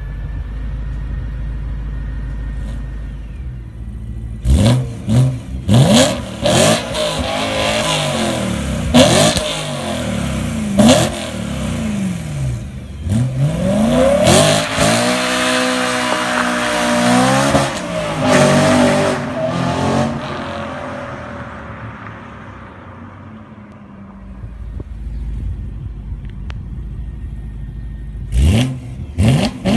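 BMW E92 M3's V8 running through an M Performance exhaust with test pipes in place of the catalytic converters. It starts at a steady idle, then gives a string of sharp revs, then a long pull with the pitch climbing and falling. It fades away, settles steady again, and gives a few more quick revs near the end.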